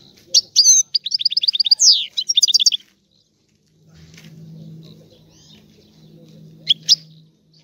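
European goldfinch singing: a rapid, high twittering phrase of quick repeated notes with one long downward sweep, for about the first three seconds, then two short sharp calls near the end. A low steady hum sits underneath from about halfway through.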